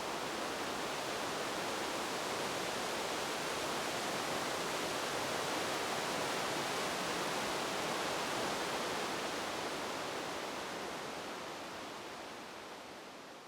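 Wind sound effect: a steady, even rushing noise without gusts, fading out over the last few seconds.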